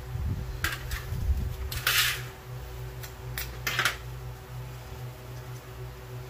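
A sand-casting flask being lifted off its packed casting sand over a metal tray. A few short scrapes and knocks, the strongest about two seconds in, over a steady low hum.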